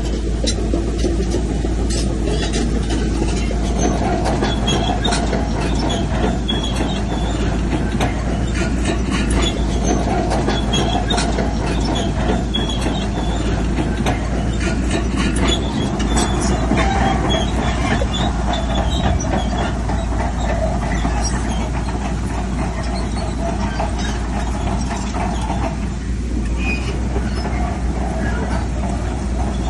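Shantui crawler bulldozer working: its diesel engine runs under load while the steel tracks clank and squeal continuously.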